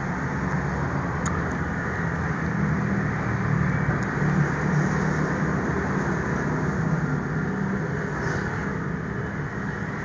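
A steady low mechanical drone with a faint hum, and a couple of faint clicks early on.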